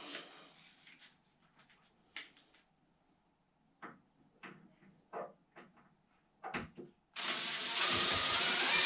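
A few small clicks and knocks from handling the screw and door fittings, then about seven seconds in a cordless drill-driver starts up and runs, its whine rising slowly as it drives a screw home.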